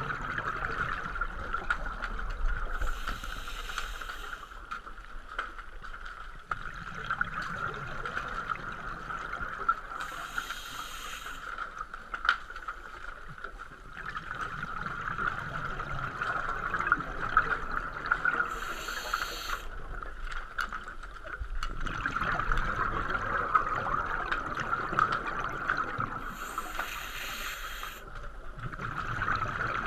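Scuba diver breathing through a regulator underwater: four short hissing inhalations about eight seconds apart, each followed by the low bubbling rumble of the exhaled air. A steady hum runs underneath.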